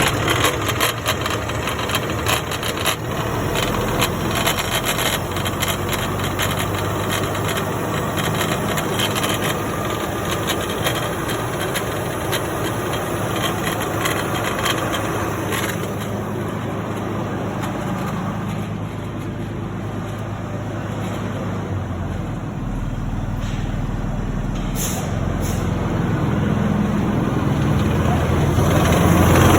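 A power take-off (PTO) rattling with the engine running: a dense clatter over a steady engine hum, thickest in the first half. It is a noise the PTO is not supposed to make, which the owner takes for damage from the factory.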